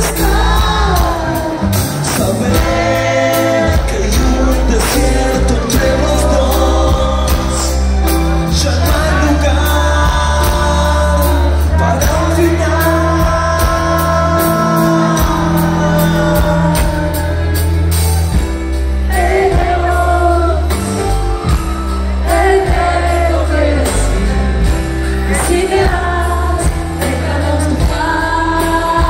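Live band playing a song with sung vocals over bass and drums, heard through the hall's PA system.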